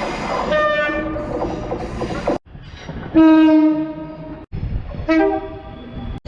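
Train horns in three short back-to-back clips, each cut off abruptly. First a horn chord sounds over the noise of a moving train. About three seconds in comes a loud multi-note horn blast, the loudest of the three, and about five seconds in a shorter horn blast.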